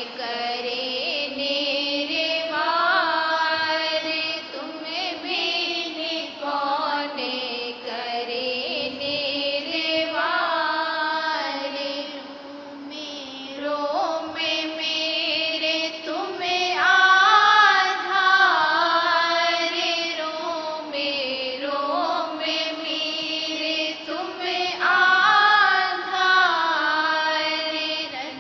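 Radhasoami devotional hymn (shabd) sung in a slow chanting style, with long held notes that rise and fall and a brief break in the singing near the middle.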